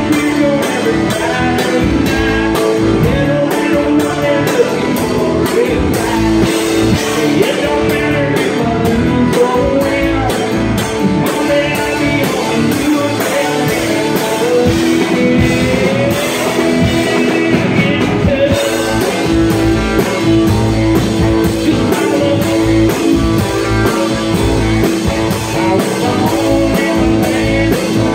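Live band music: a man singing into a microphone while strumming an acoustic guitar, backed by a second electric guitar or bass and drums with a steady beat.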